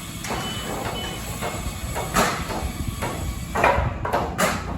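Construction-site work noise: a steady hiss with a few sharp knocks and thuds.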